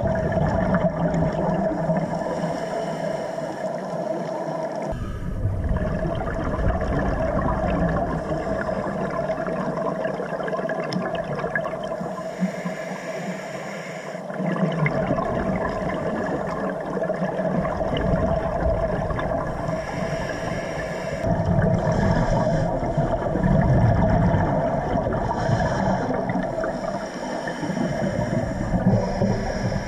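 Scuba diver breathing through a regulator, heard underwater. Several slow breath cycles alternate between a hissing inhale and a longer gurgling rush of exhaled bubbles, over a steady hum.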